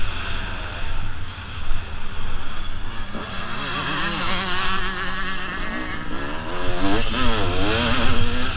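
1996 Kawasaki KX250's single-cylinder two-stroke engine being ridden hard, its pitch rising and falling again and again with throttle and gear changes, over a heavy low rumble of wind on the microphone.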